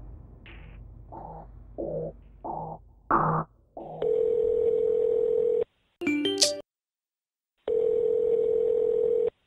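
Telephone ringback tone: two long steady beeps about two seconds apart as an outgoing mobile call rings, with a brief cluster of chiming notes between them. A few short low sounds come before the first beep.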